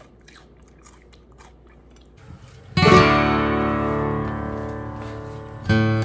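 Faint clicks and chewing from someone eating, then acoustic guitar music: a loud strummed chord about three seconds in that rings out slowly, and a second strum near the end.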